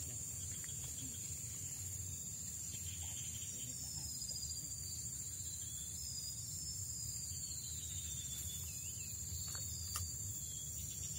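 Insects, crickets or cicadas, keep up a steady high-pitched drone, over a low steady rumble. Several falling whistled calls come in from about a third of the way through.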